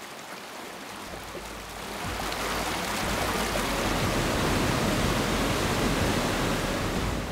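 Fast mountain river rushing over boulders in whitewater rapids, a steady hiss of water that swells louder over the first two or three seconds and then holds.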